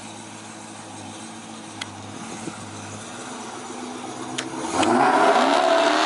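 Dodge Charger SRT Hellcat's supercharged V8 pulling away: a low, steady rumble, then a loud rev with rising pitch as it accelerates near the end.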